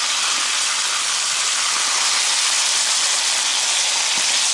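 Bone-in pork entrecotes frying in oil in a frying pan: a steady sizzle.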